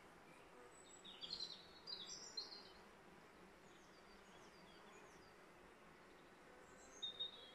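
Faint steady hum of honeybees flying at the entrance of a bait hive newly taken over by a swarm. A songbird's quick high chirping phrases come in about a second in and again near the end, louder than the hum.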